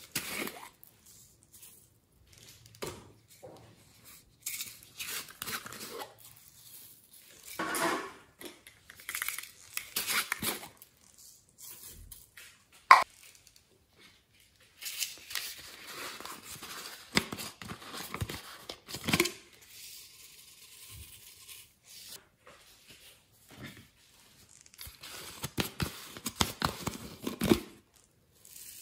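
Plastic craft containers being handled and shaken out, with fine glitter and foam beads pattering into a glass dish of sequins: stop-start rustling and crinkling, with one sharp click about halfway through.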